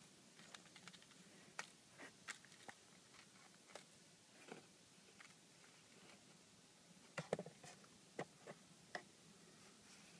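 Faint, scattered crinkles and ticks of a cellophane cigarette-packet wrapper being prodded by fingertips, with a short cluster of louder ones about seven seconds in.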